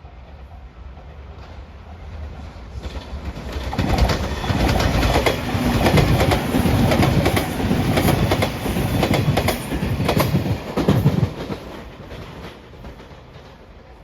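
Five-car JR Shikoku 8000 series electric train passing close by, its wheels clacking rapidly over the rail joints. It builds from about three seconds in, is loudest for about seven seconds, and fades near the end.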